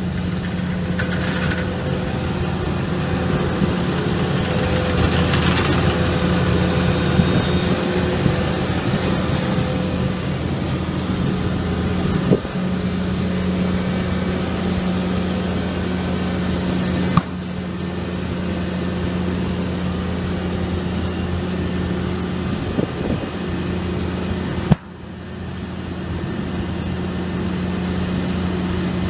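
ERO self-propelled grape harvester running with a steady engine drone, with a rushing, rustling noise over it for the first several seconds. The drone breaks off abruptly three times, about 12, 17 and 25 seconds in, each time picking up again at once.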